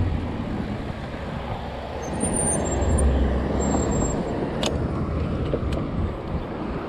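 A motor vehicle passing close by, its engine rumble swelling about halfway through and fading, over steady wind buffeting the microphone of a moving bicycle. Two sharp clicks come near the end.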